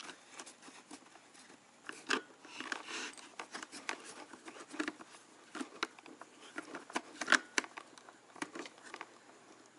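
Hand screwdriver driving small screws into the plastic chin piece of a snowmobile helmet: faint, irregular clicks and ticks of the bit and plastic parts, with one sharper click about seven seconds in.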